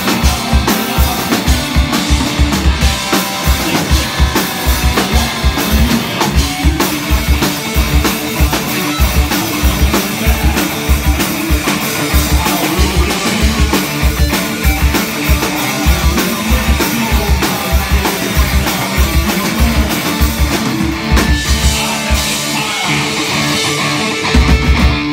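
Live rock band playing: electric guitars and bass over a drum kit driving a fast, steady bass-drum beat. The kick drum drops out for a few seconds near the end, then comes back with a few heavy hits.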